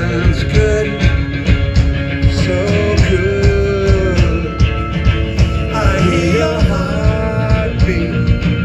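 Live rock band playing a song: drums keep a steady beat under guitar, with a melody line sliding up and down over the top.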